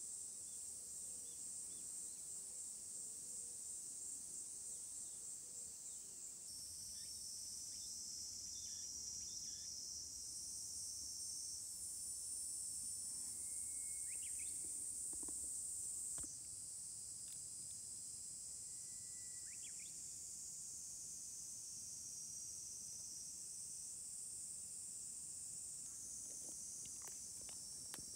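A steady, high-pitched outdoor insect chorus whose pitch and texture change abruptly a few times. A couple of short faint chirps come midway.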